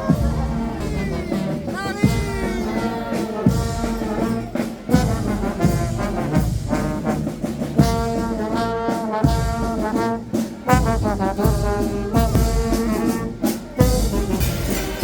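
Brass band playing a tune, trombones and trumpets over a steady drumbeat.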